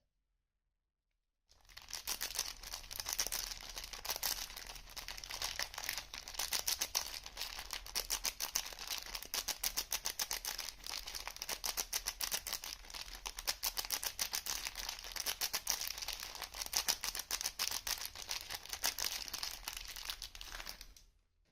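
Soap packaging being unwrapped: dense crinkling and tearing of the wrapper, starting about a second and a half in and stopping just before the end.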